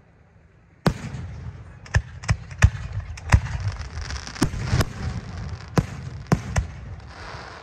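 Aerial fireworks shells bursting: after a quiet first second, a rapid, irregular string of about a dozen sharp bangs.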